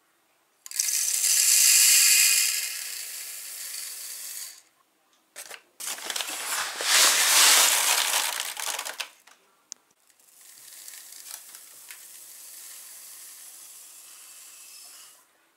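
Dry grain kernels poured from a bowl into the wooden hopper of a home grain mill, a rushing rattle, for about four seconds. In the middle the bowl is scooped through grain in a paper sack, then a second, quieter pour follows near the end.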